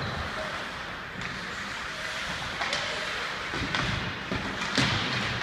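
Ice hockey play on an indoor rink: a few short sharp clacks and thumps of sticks, puck and boards over a steady hubbub, the loudest clack near the end.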